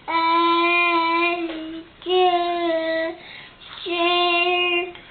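Teething toddler vocalizing in three long, steady-pitched held notes with his hand in his mouth, with short breaks between them.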